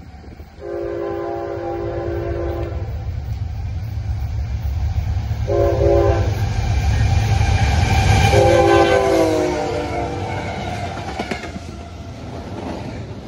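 CSX diesel freight locomotive sounding its multi-chime air horn as it approaches and passes: a long blast, a short blast, then a long blast that drops in pitch as the locomotive goes by, over the loud rumble of the engine. Double-stack container cars then roll past with wheel clatter.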